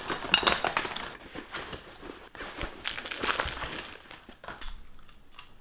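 A fabric backpack being handled and packed: cloth rustling and scraping with small clicks and knocks of gear inside. It dies away about four seconds in.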